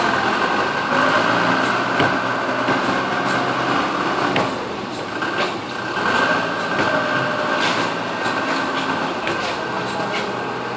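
Forklift engine running steadily while the forklift carries a pallet load of boxes and positions it at the back of a container truck.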